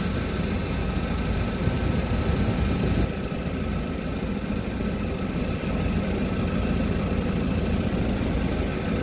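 Toyota 2Y 1.8-litre carbureted four-cylinder petrol engine of a 1993 Hiace truck idling steadily, heard close up. It runs smoothly and quietly, 'sings, whispers', with no rattle.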